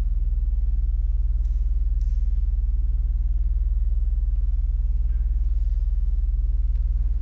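Pipe organ holding a very deep, steady low note from the pedal range, with a few quieter overtones above it. It is released right at the end and dies away into the hall's reverberation.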